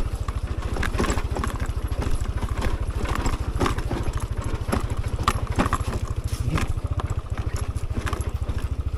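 Motorcycle engine running steadily while the bike rides a rough, broken dirt road, with scattered knocks and rattles from the bike over the bumps.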